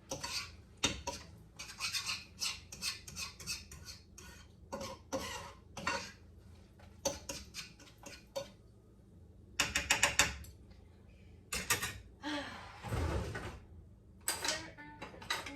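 Metal kitchen utensils clinking and scraping against pans and dishes in quick irregular clusters, with a longer rough scrape about three-quarters of the way through.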